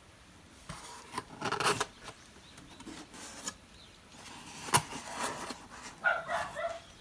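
Dry packing straw rustling and scraping against cardboard as hands work in a filled cardboard box, in irregular bursts, with one sharp tap about two-thirds of the way through.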